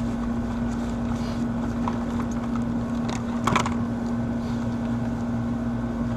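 Steady machine drone with a constant low hum, and a short clatter about three and a half seconds in.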